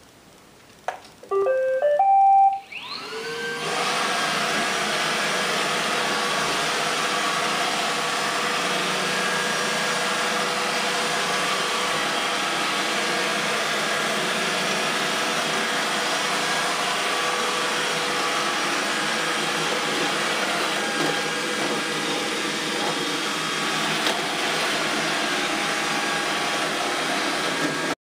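iRobot Roomba 870 robot vacuum starting up: a short tune of notes stepping up in pitch, then its vacuum motor and brushes whine up to speed about three seconds in and run steadily while it cleans, at about 67 dB on a phone sound meter.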